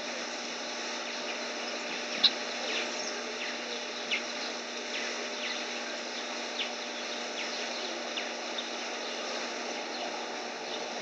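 Scattered short bird chirps over a steady outdoor background hiss. A single sharp click about two seconds in is the loudest sound, with a softer one about two seconds later.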